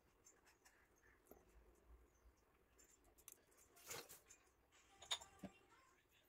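Near silence with scattered faint clicks, a brief rustle about four seconds in and a sharp click about a second after it.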